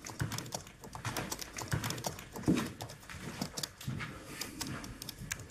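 Typing on a laptop keyboard: a quick, irregular run of key clicks.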